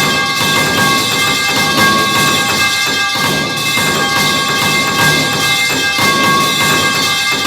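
Many copies of the falling-metal-pipe clang sound effect layered on top of each other. They make a continuous, dense wall of clangs, with the same metallic ringing tones held throughout and no pause.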